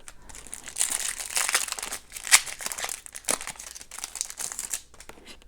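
A pack of hockey trading cards being opened, its plastic wrapper crinkling and crackling, with a couple of sharper crackles in the middle.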